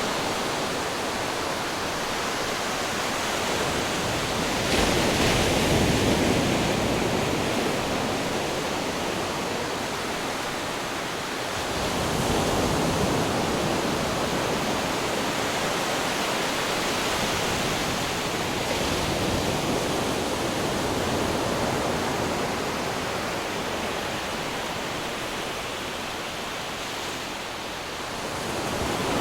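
Ocean waves breaking against rocks, a continuous rushing surf with louder surges about five seconds in and again about twelve seconds in.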